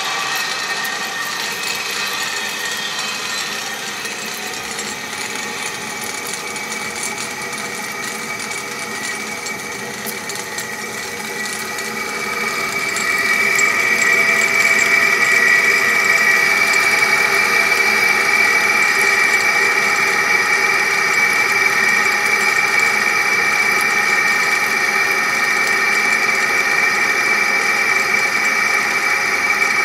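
Cable car reel mechanism running: a steady mechanical whir with a whine, growing louder and more whining about twelve seconds in.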